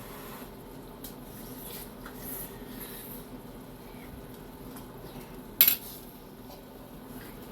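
Cutlery and dishes clinking in a kitchen: a few light clinks, then one sharp clatter about five and a half seconds in, over a steady low hum.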